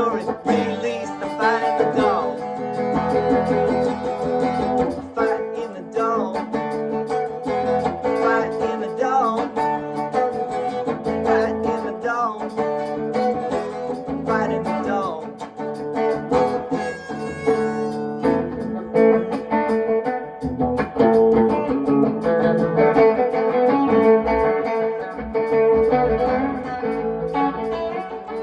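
Guitar playing an instrumental break in a blues-rock song, picked and strummed, with notes that slide up and down in pitch.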